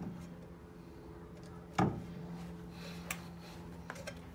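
Hands moving an Opel GT's front brake rotor and hub assembly on its loosened suspension: one sharp knock about two seconds in and a few faint clicks later, over a steady low hum.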